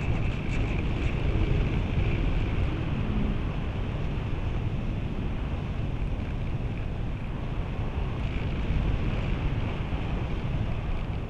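Steady wind rush buffeting the onboard camera of a radio-controlled slope-soaring glider in flight. A higher hiss weakens in the middle and returns near the end.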